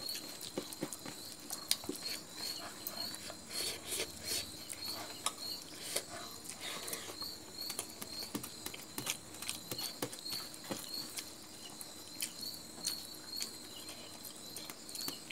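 Eating by hand: fingers scraping and pressing the last food across a stainless steel plate, with small wet chewing and mouth clicks, a string of irregular soft clicks. A steady high insect trill, typical of a cricket, runs faintly behind.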